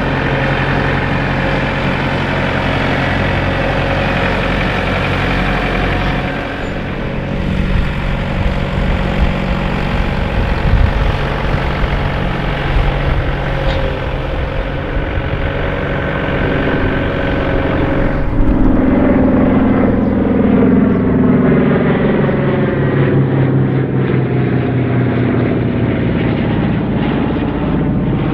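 Avro Lancaster's Rolls-Royce Merlin piston engines running steadily during a ground engine run. About two-thirds of the way in, the sound changes to a propeller aircraft flying overhead, its engine drone sweeping in pitch as it passes.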